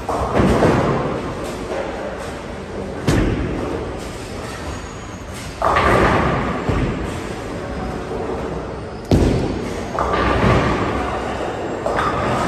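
Tenpin bowling alley: a run of sharp thuds and crashes, several seconds apart, as balls hit the lanes and roll into the pins, each crash fading into a rumble.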